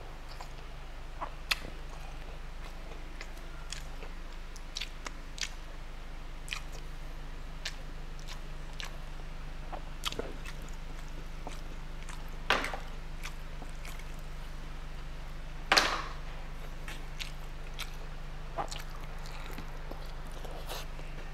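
Close-miked chewing of tender braised beef and rice, with scattered wet mouth clicks and a couple of louder smacks about twelve and sixteen seconds in. A steady low hum runs underneath.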